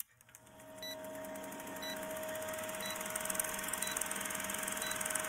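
Film-projector sound effect under a countdown leader: a steady fast mechanical clatter with hiss, with a short tick about once a second. It starts about a second in, after a brief silence.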